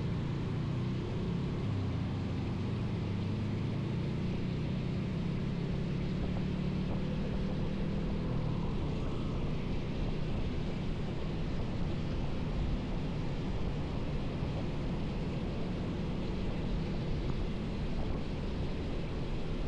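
Motorcycle engine running at a steady pace under way, over a constant wash of wind and wet-road noise; the engine hum fades into the road noise about halfway through.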